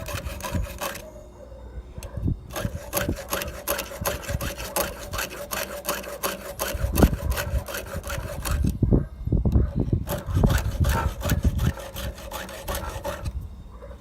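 A hand file scraping across the cutting teeth of a chainsaw chain, sharpening them in a run of repeated strokes that stop briefly twice.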